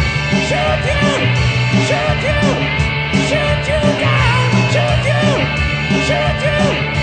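A rock band playing loud and live: drums striking in a steady beat under bass and electric guitar, with melodic lines bending in pitch over the top.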